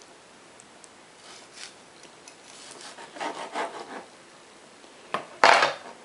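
Kitchen knife sawing through partly frozen raw chicken breast on a plastic cutting board: a few scraping strokes around the middle, then a sharp knock and a louder scrape of the blade near the end.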